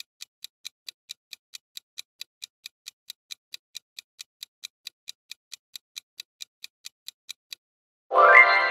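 Countdown-timer clock-ticking sound effect, about four sharp ticks a second, that stops near the end. A ringing tone then sounds and begins to fade as the timer runs out.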